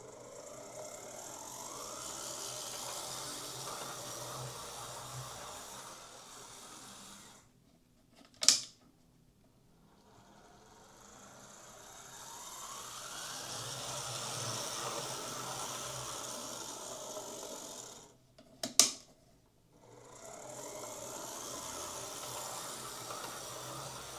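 Jouef TGV model train's motor bogie whirring as the train runs along the track in three runs, its pitch rising and falling with speed. Between runs there are pauses, each with one sharp click. This is a test run after the bogie was greased and its wires rerouted clear of the gear; the owner judges it better going forwards than in reverse.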